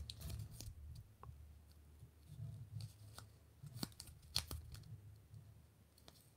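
Blue painter's tape being wrapped and pressed around a small figure's head, giving faint, scattered crinkles and sharp crackles.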